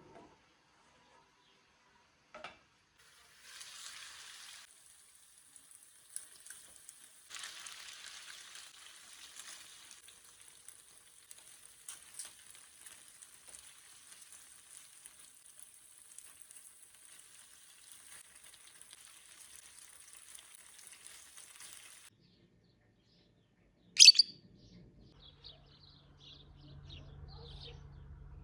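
Food sizzling and crackling as it fries in a pan, a steady crackly hiss that cuts in and out. Near the end comes one loud sharp knock, followed by a low steady hum and faint bird chirps.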